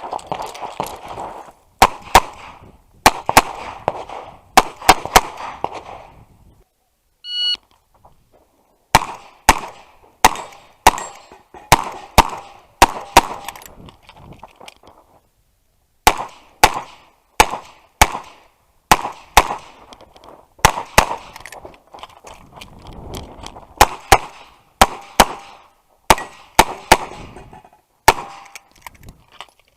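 Revolver gunshots, loud and echoing: several shots in the first six seconds, a short electronic shot-timer beep about seven seconds in, then strings of quick shots broken by brief pauses.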